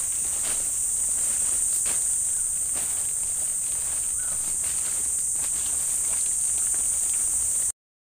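Insects in forest undergrowth keep up a steady, high-pitched drone, with scattered small clicks and rustles of leaves and gear being handled underneath. The sound cuts off suddenly near the end.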